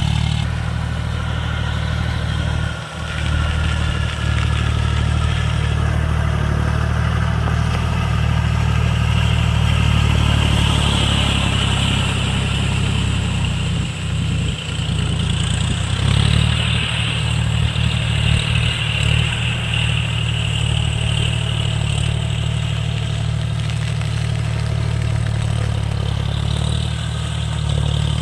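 Tractor diesel engine running steadily, with brief dips in level about three seconds in and again around the middle.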